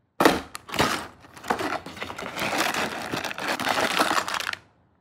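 Cardboard box tab pushed in and torn open with a few sharp cracks, then plastic parts bags crinkling as they are handled, stopping shortly before the end.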